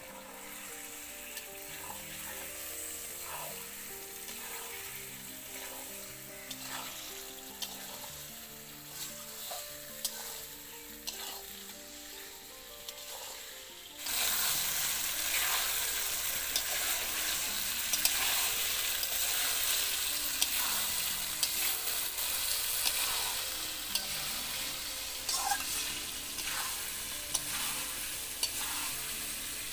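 Beef liver frying in oil and spices in an aluminium wok over a wood-fired clay stove, with a spatula scraping and knocking against the pan. The sizzle is light at first, then turns loud and hissing from about halfway, as the liver is fried down (bhuna).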